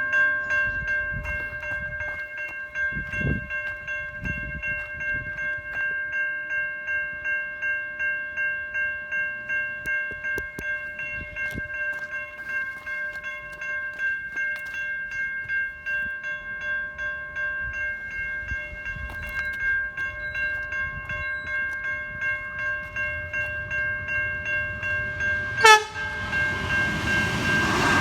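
Level-crossing electronic warning bells (older-style Safetran Type 3) ringing, a steady multi-tone chime pulsing about twice a second. Near the end a brief loud blast cuts in and the noise of an approaching train rises under the bells.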